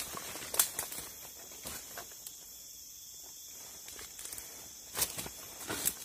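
Footsteps and brushing through dense undergrowth and dry leaf litter: a few crackling steps and leaf rustles near the start and again near the end, quieter in the middle.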